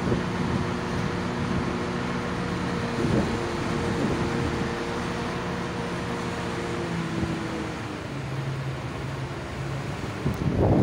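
An engine running steadily, its pitch stepping down a little partway through, with a few knocks and a louder clatter near the end as the lifting hook reaches the men on the generator.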